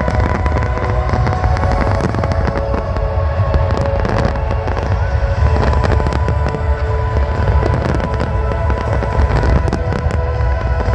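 Fireworks barrage: many aerial shells bursting in quick succession over a constant low rumble, with no pause between bursts.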